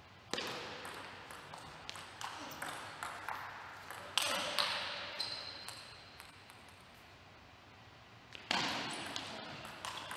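Table tennis ball clicking off rackets and the table in quick rallies, with a ringing echo after the harder hits. The play stops for a few seconds in the middle, and a new rally starts near the end.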